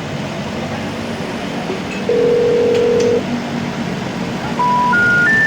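Telephone ringback tone: one long steady beep, then near the end three short tones stepping up in pitch, the special information tone that signals a call cannot be completed. A steady background noise runs underneath.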